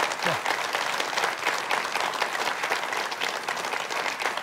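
Studio audience applauding, a dense, even clatter of many hands clapping throughout.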